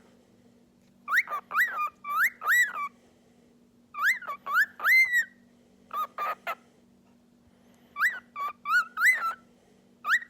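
Pet cockatiel whistling a tune: short phrases of clear, rising-and-falling notes, with pauses of about a second between phrases.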